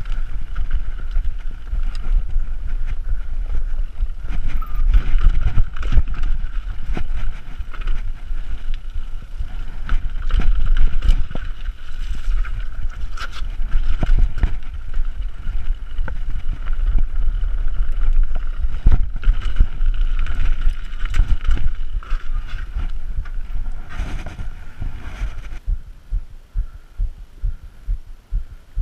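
Mountain bike riding down a rough forest trail, heard from a camera on the bike: wind rumble on the microphone, the rattle of the bike, and many sharp knocks from roots and rocks, with a steady high buzz over it. Near the end the ride noise gives way to a regular thumping about twice a second.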